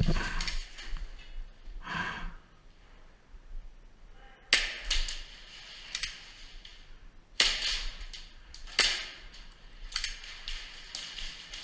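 Airsoft guns firing scattered single shots: sharp snapping cracks, about five of them, some in quick pairs.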